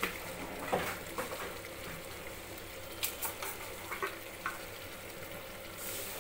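Cauliflower curry simmering and sizzling in an open aluminium pressure cooker, a steady soft hiss broken by a few light clicks and taps.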